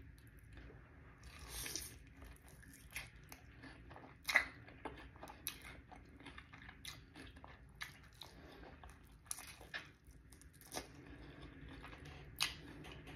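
Close-up biting and chewing of a sauced, breaded fried chicken wing (Popeyes honey lemon pepper wing): crisp crunches of the coating mixed with wet chewing. There is a louder bite about one and a half seconds in, and sharp crunches come again and again after it.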